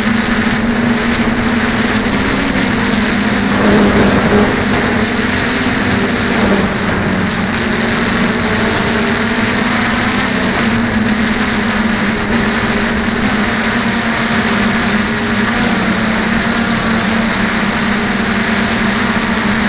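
DJI 450 quadcopter's electric motors and propellers humming steadily in flight, picked up by the camera mounted on the drone, over a steady rushing noise. The hum swells briefly about four seconds in.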